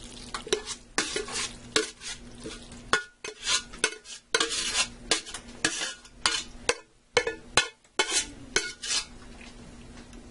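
A spoon scraping and knocking against a metal Dutch oven as macaroni in meat and cheese sauce is scooped out and dropped into a metal baking pan, in irregular scrapes and clunks that die away about nine seconds in.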